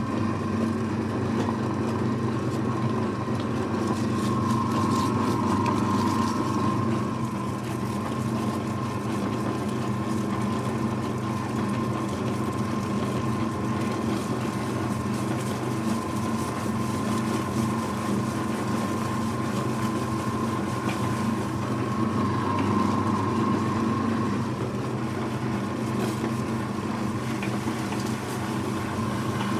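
Electric meat grinder running steadily, its motor giving an even hum, as it grinds potato chips.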